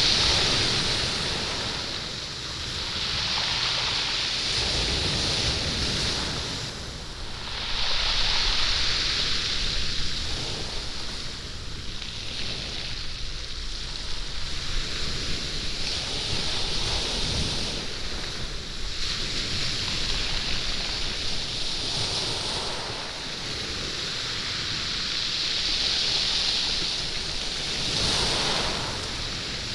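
Sea waves washing up and back over a stony beach, rolling the stones so they rattle and clatter in the wash. The sound swells and falls with each wave, about every five to six seconds.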